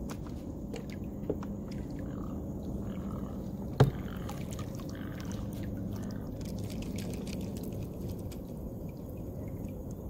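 Steady low rumble of water and wind around a kayak, with faint scattered ticks, a small click just over a second in and one sharp, loud click a little under four seconds in.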